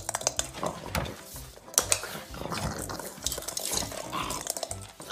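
A dog scrambling across a tiled floor and rug: a fast, irregular clatter of claw clicks and scrapes.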